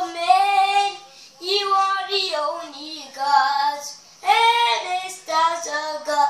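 A young child singing alone, unaccompanied, in short held phrases of about a second each with brief pauses for breath between them.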